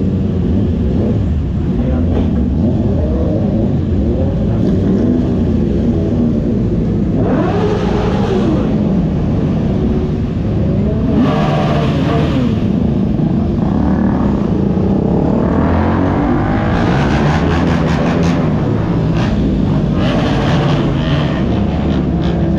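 Several motorcycle engines idling and revving, with the engine note rising and falling again and again as bikes ride off one after another.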